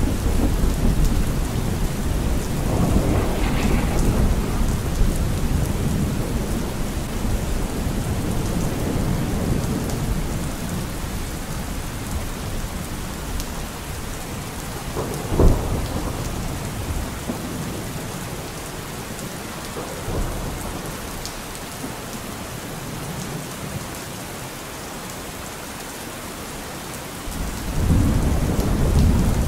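Steady rain with rolling thunder; a sharp crack of thunder about halfway through and a louder rumble building near the end.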